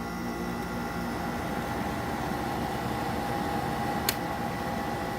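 Haier 5,000 BTU window air conditioner running, its fan blowing with a steady whir and hum, with a single sharp click about four seconds in.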